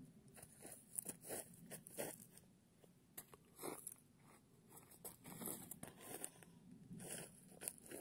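Footsteps crunching faintly and irregularly on dry, gravelly ground.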